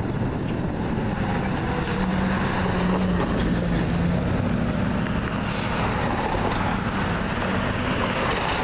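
Garbage truck's diesel engine running steadily as the truck drives past and pulls away, with road and tyre noise. A brief high squeal comes about five and a half seconds in.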